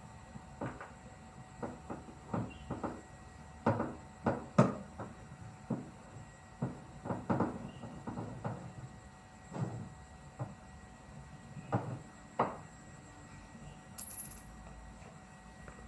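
Irregular knocks and metallic clinks of hand tools and parts being handled during repair work on a front-loading washing machine, about a dozen separate strikes with pauses between them.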